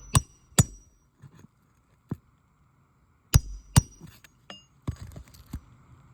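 Hammer striking a metal roof snake, sharp metallic clinks that ring briefly, as a roofing nail is driven under the course above a replacement asphalt shingle. Two strikes come close together right at the start and two more about three seconds later, with a few lighter taps after.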